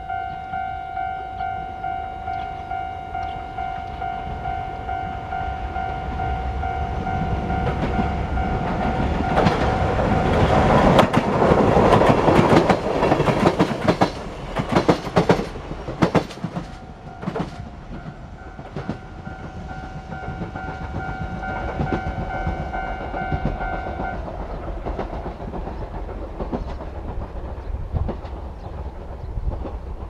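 Japanese level-crossing warning bell ringing in a steady, repeating two-tone pulse, about two strikes a second. Partway through, an electric train passes close by and drowns out the bell, its wheels clattering over the rail joints. The bell then rings on and stops about two-thirds of the way through as the crossing clears.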